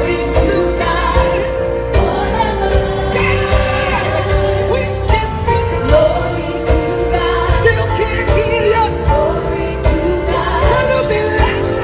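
Live gospel music: a band with a steady drum beat under singing voices.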